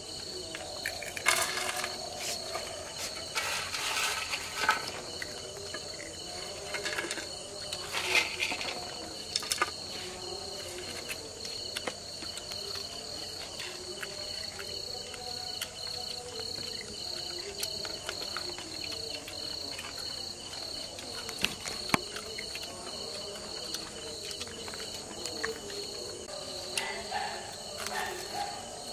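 Crickets chirring steadily in a high, pulsing trill, with scattered clinks and knocks of plates and utensils and soft voices underneath.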